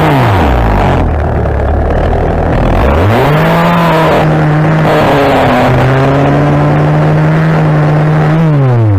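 A small engine revving up, holding steady at high revs for about five seconds, then dropping back toward idle near the end.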